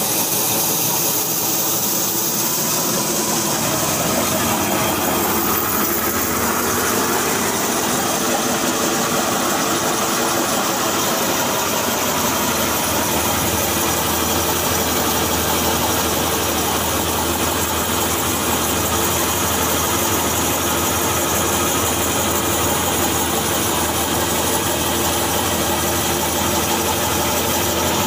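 Cotton-cleaning machine running steadily alongside a tractor engine: a dense, continuous mechanical noise with a steady engine hum, the low hum growing stronger a few seconds in.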